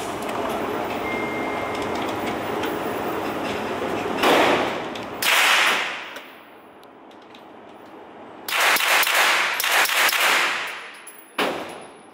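Pistol with a 3D-printed suppressor firing in an indoor range: two shots about a second apart, then a rapid string lasting about two seconds, then a single shot near the end, each echoing off the range walls.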